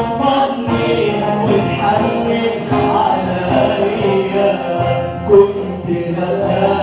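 Music: an Arabic Christian hymn, with singing over instrumental accompaniment.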